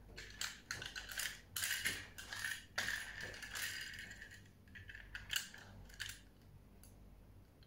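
Quick clicks, taps and crinkles of a small toy car and its plastic packaging being handled. These go on for about six seconds, then die away.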